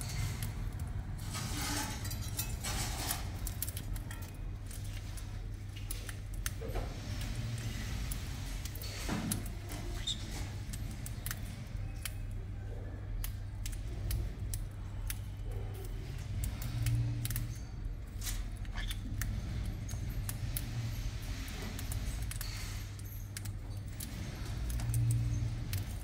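Small parrots feeding at a seed dish: scattered crisp clicks and rattles of beaks cracking and picking through seed, over a low steady hum.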